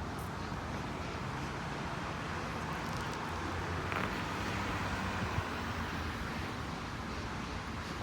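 Steady traffic noise at a city roadside, with a low engine hum underneath and a few faint knocks.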